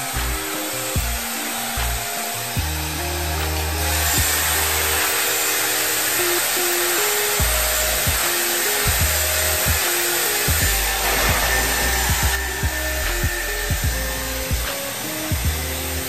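Dyson hair dryer blowing hair, a steady rush of air that gets louder about four seconds in and drops back about twelve seconds in, heard under background music.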